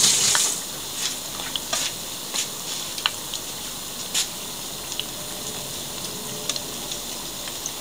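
Tempura-battered salmon strips deep-frying in hot oil: a steady sizzle scattered with sharp crackling pops. The hiss is louder for the first half-second, then settles.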